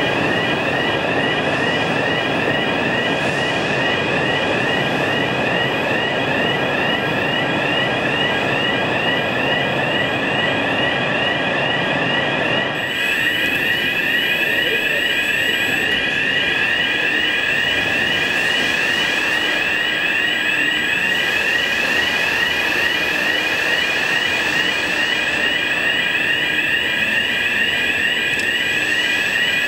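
Electronic warning sounder giving a continuous, rapidly pulsing high tone: the motion warning of an automated crane handling an autoclave door. Under it a broad machinery rumble drops away about 13 seconds in, leaving the sounder alone.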